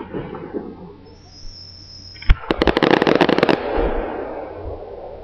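Aerial fireworks: a brief high whistle, then a sharp bang about two seconds in, followed by about a second of rapid crackling pops that die away into a fading rumble.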